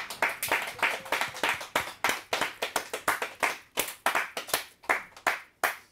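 Hands clapping in applause at the end of a sung ballad: steady single claps, about four a second, growing fainter near the end.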